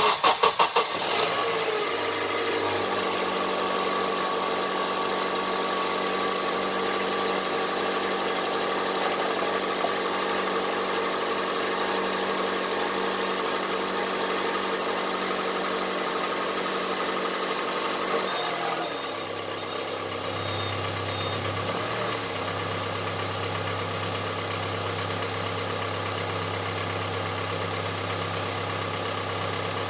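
Honda CR-V III's 2.4-litre four-cylinder petrol engine cranking and catching, then running at a raised idle that drops to a lower, steady idle about 19 seconds in. The engine has a knock which the owner likens to a diesel's.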